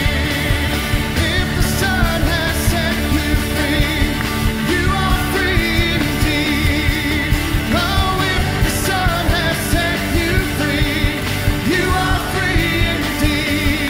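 Worship band playing an upbeat rock-style song with a steady beat, with voices singing over it.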